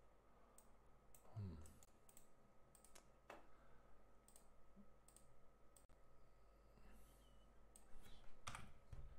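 Faint, scattered clicks of a computer mouse and keyboard, with two soft low thumps, one about a second and a half in and a louder one near the end.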